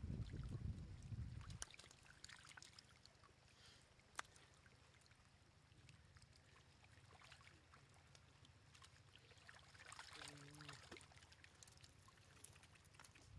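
Faint splashing and trickling of shallow muddy water as stranded fish wriggle in it, with scattered small clicks. A low rumble fills the first second or two, and a brief low hum comes about ten seconds in.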